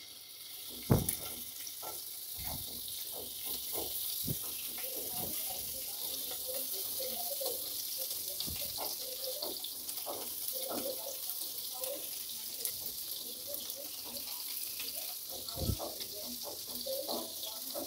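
Hot oil sizzling steadily as small spice-coated whole fish are laid into a frying pan. The sizzle builds about a second in as the first fish go in, with a few light knocks as more are set down.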